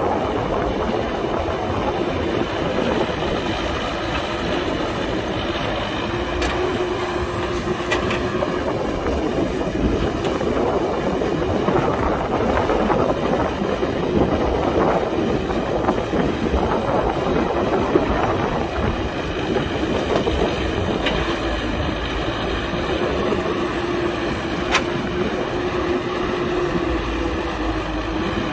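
Excavator's diesel engine and hydraulics running steadily while digging and loading, with a faint whine rising in and out and a few sharp clicks or clanks.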